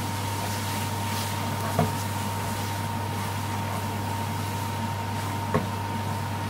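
Wooden spoon stirring frying onions and spices in an aluminium pot, with two knocks against the pot, one about two seconds in and one near the end, over a steady mechanical hum.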